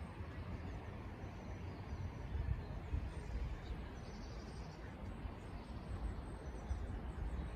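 Outdoor ambience: a low, uneven rumble, with a few faint, short bird chirps above it.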